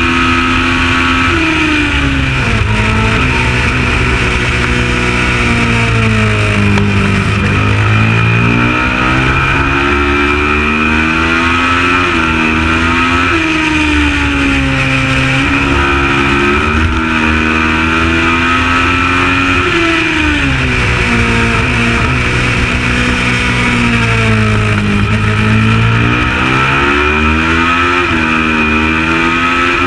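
Kawasaki ER650 Supertwin race bike's 649 cc parallel-twin engine at racing speed, revs climbing through the gears and falling away several times, with deep drops about 2 s, 7 s, 20 s and 25 s in as it slows for corners.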